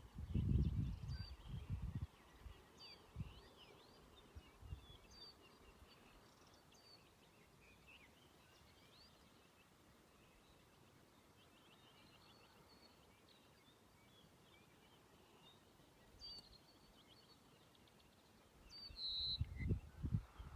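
Small birds chirping and calling in short, high notes throughout. Low rumbling bursts come in the first two seconds and again near the end.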